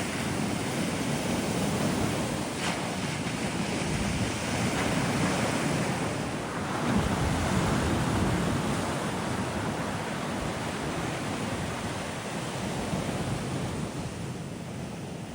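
Sea waves breaking and washing up on a sandy beach in a steady rush, a little louder in the middle and easing off near the end, with wind buffeting the microphone.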